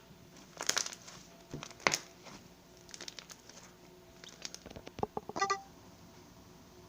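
Slime being squeezed and poked by hand: irregular clusters of crackling clicks and squishes, with a short squeak about five seconds in.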